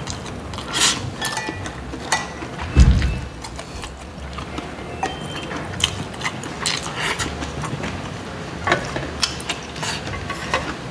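Mukbang eating sounds: wooden chopsticks clicking and scraping against stainless steel food containers, with irregular sharp clicks throughout and a low thump a little under three seconds in.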